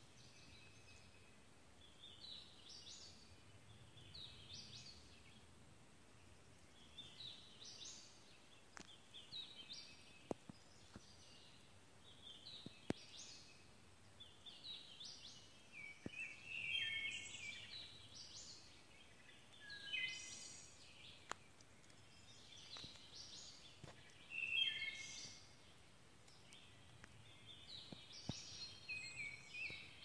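Songbirds singing in woodland: short, high song phrases repeat every second or two throughout, with a few faint sharp clicks.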